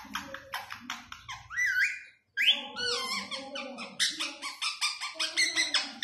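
Indian ringneck parakeet chattering and mimicking speech, with rising-and-falling whistled notes. A rapid string of short calls follows a brief break a little after two seconds in.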